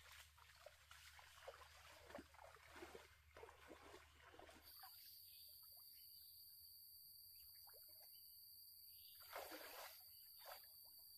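Faint splashing of legs wading through shallow stream water for the first few seconds. Then a steady high insect drone, broken about nine seconds in by a louder splash of wading in deeper water.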